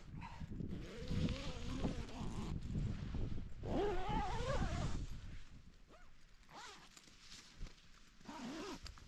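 Storm wind buffeting the microphone in gusts, strongest over the first half, with a brief wavering pitched whine near the middle.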